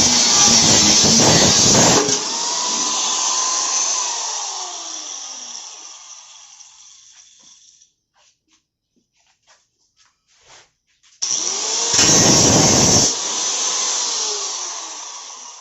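Handheld electric power tool running at full load, then released and winding down with a falling whine. After a few quiet seconds with some light clicks, it spins up again, runs loud for about a second and winds down once more.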